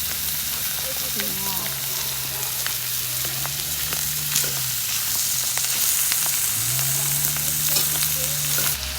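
Food frying in a pan, a steady sizzle with small crackles and pops throughout.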